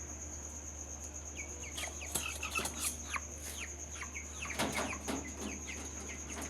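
Broiler chicks peeping: a run of short, falling cheeps begins about a second in, over a steady high-pitched whine.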